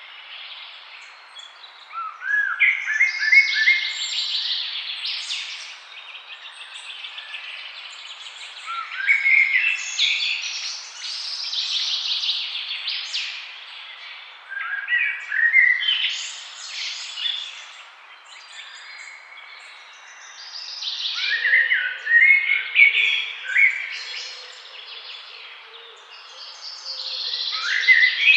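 Forest songbirds singing: a phrase of quick chirping notes, each starting with a run of rising notes, comes about every six seconds over a steady faint hiss.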